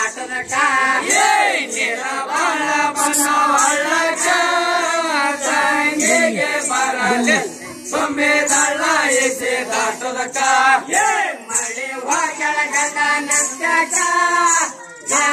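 Group of men singing a Rivayat folk song in chorus, over a metallic jingle pulsing about twice a second.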